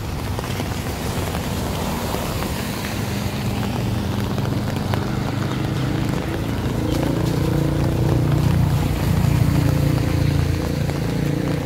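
Street traffic on a rain-wet road: a steady rumble and hiss of passing cars, with wind buffeting the microphone. From about halfway in, a car engine running close by adds a steady low hum that grows louder.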